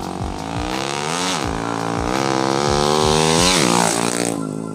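Motorcycle single-cylinder four-stroke engine, a Jupiter Z running a swapped Vixion cylinder block and Jupiter MX head, accelerating hard. Its pitch climbs, then drops at a gear change about a second in and again near the end, and the sound cuts off suddenly.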